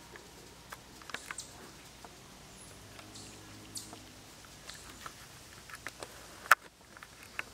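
Cairn terrier chewing and smacking its lips over a tomato it has just eaten: scattered soft, wet mouth clicks, with one sharper click about two-thirds of the way through.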